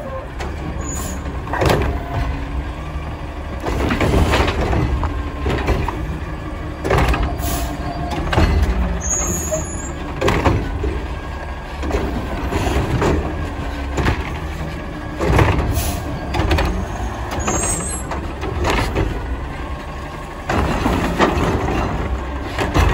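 Heil Curotto Can arm on a natural-gas Mack LR front-load garbage truck gripping wheeled carts and tipping them into the can, with repeated bangs and clunks of the carts and their contents. The truck's engine runs steadily underneath.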